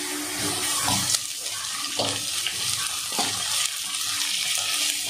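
Chopped onions and crushed ginger-garlic sizzling in hot oil in a metal kadai, with a metal spatula scraping through them about four times, roughly once a second.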